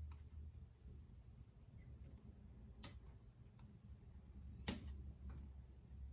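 Two sharp clicks about two seconds apart, the second louder, with a few fainter ticks over a faint low hum: hand work prying a small fan connector loose from a car navigation unit's circuit board.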